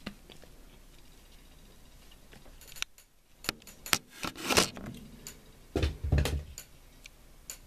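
Handling noise from a lockback pocket knife with a plastic handle being turned over in the hands: a run of short clicks and rubs starting about three seconds in, with a couple of dull thumps a little past the middle.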